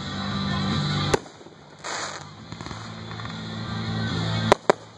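Fireworks going off: a sharp bang about a second in, a short hissing crackle around two seconds, and two quick bangs near the end, over a steady low hum.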